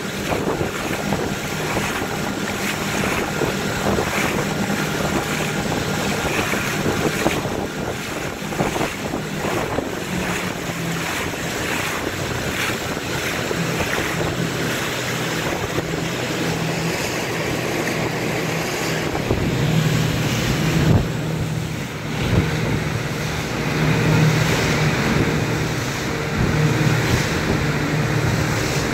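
Motorboat engine running with a steady hum, mixed with wind buffeting the microphone and water splashing. The low engine sound grows louder about two-thirds of the way through.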